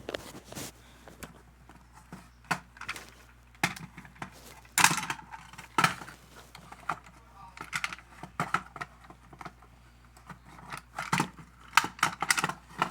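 Fire alarm pull station being worked with its reset key: irregular metallic clicks, rattles and knocks as the key turns in the lock and the station's parts are handled, the loudest knock about five seconds in and a cluster of clicks near the end.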